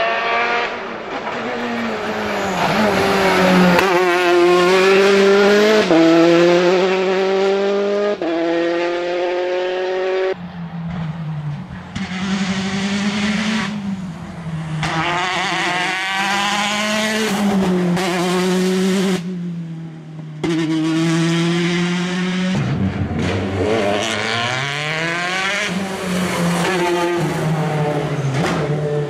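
Peugeot 208 rally cars driven hard through a tarmac stage, engines revving up and dropping again and again through gear changes. Heard as several separate passes, with abrupt breaks between them.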